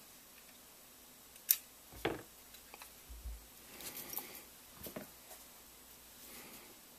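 Faint handling noise of metal gun parts: a hex key and rail mounting hardware being worked on an AK receiver. There is a sharp click about a second and a half in and another about half a second later, then a soft thump and a few small ticks and rustles.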